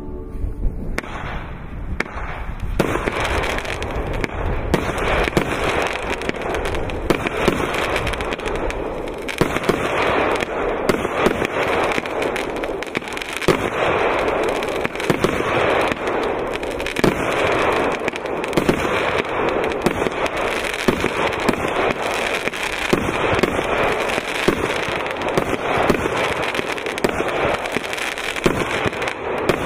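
Le Tigre Pyrokit 64 fireworks firing in quick succession: a dense, unbroken stream of small pops and crackles as tails rise and stars burst, with a sharper bang standing out now and then.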